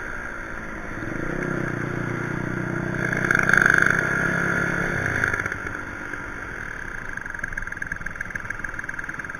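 Two-stroke motorcycle engine revved up and held for a few seconds. About five seconds in it drops back to a steady, rhythmic idle.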